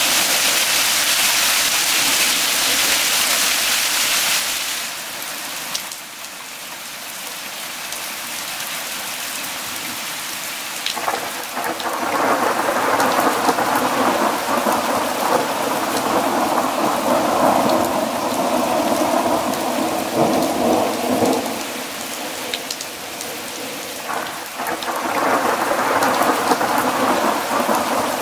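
Hail and heavy rain hissing down for the first five seconds, then steadier, quieter rain. Long rolling thunder rumbles in from about eleven seconds in and lasts some ten seconds, and a second peal begins near the end.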